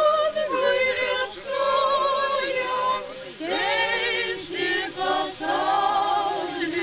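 Choir singing unaccompanied, several voices holding long wavering notes in phrases that break off and start again a few times.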